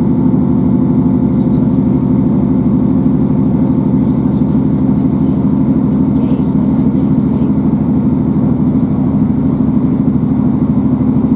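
Class 158 diesel multiple unit running at speed, heard inside the passenger saloon: a steady drone from the underfloor diesel engine over the rumble of the wheels on the track.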